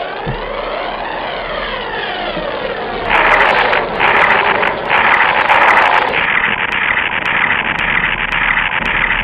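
Electronic sound effects: criss-crossing tones sweeping up and down, then, about three seconds in, a loud hissing noise that breaks off briefly a few times, with sharp clicks over it. The sound cuts off suddenly at the end.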